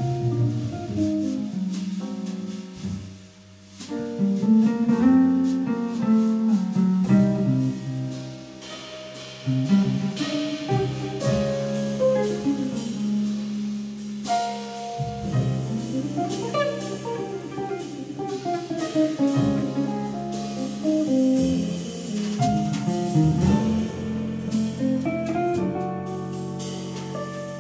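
Jazz quartet playing live: archtop guitar with upright double bass, keyboard and a drum kit with cymbals.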